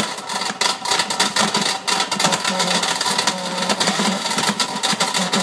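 Blender running with 3/4-inch steel ball bearings in the jar: a loud, continuous rattling clatter of the balls knocking against the jar and blade over the hum of the motor.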